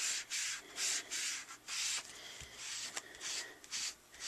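Ink applicator tool rubbed over cardstock in short scrubbing strokes, about two a second, spreading wet alcohol ink into a background wash; the strokes ease off for a moment midway and pick up again.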